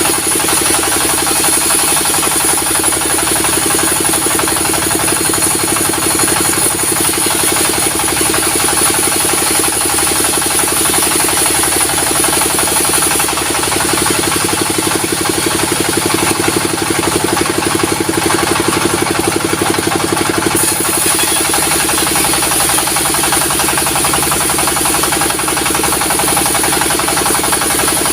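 Diesel-driven sawmill saw running steadily while a timber log is split, with an engine hum and a high whine that fades out for about seven seconds midway and then comes back.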